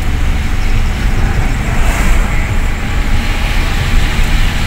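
Road and engine noise inside a moving car, a steady deep rumble. About two seconds in, an oncoming vehicle passes with a brief whoosh.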